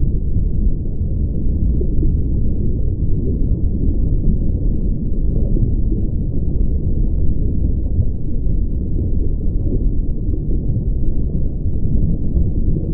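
A steady, loud low rumble, an even noise with no distinct tones or separate events, unchanging throughout.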